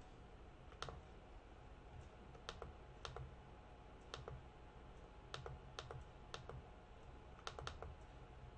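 About nine faint, scattered clicks of a computer mouse, with a quick pair near the end, as folders are opened in a file dialog.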